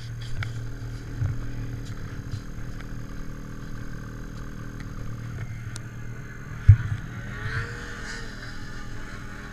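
Ski-Doo Summit two-stroke snowmobile engine idling steadily, with one sharp knock about two-thirds of the way through.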